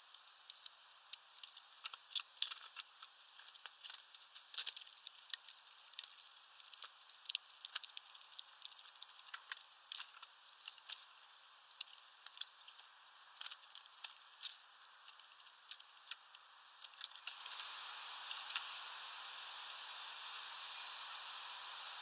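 Great tit's claws and beak tapping and clicking on a clear plastic water dish as it drinks, in quick irregular bursts. About seventeen seconds in, the clicks stop and a steady hiss takes over.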